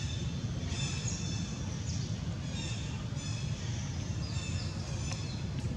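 Short, high chirping bird calls repeating about once or twice a second over a steady low rumble.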